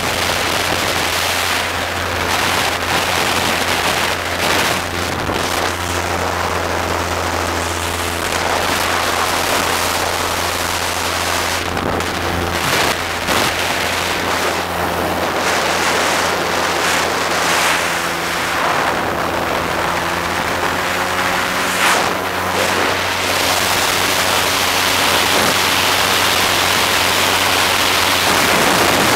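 The engine of a flying raft boat droning steadily in flight, its pitch holding almost level. Heavy wind noise rushes and gusts over the microphone.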